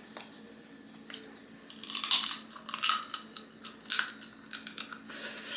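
Cooked crab shells cracking and crunching as crab legs are pulled apart by hand and bitten, with close-up eating sounds. The sounds come as bursts of sharp crackles starting about two seconds in.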